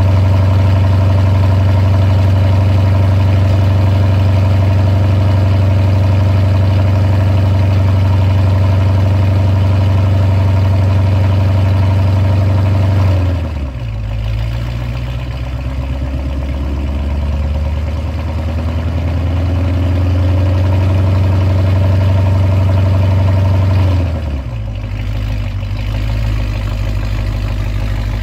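Chrysler 300 SRT8's Hemi V8 idling through its exhaust while warming up after a cold start. The steady idle note drops lower and quieter about 13 seconds in, climbs back up, and drops again about 24 seconds in.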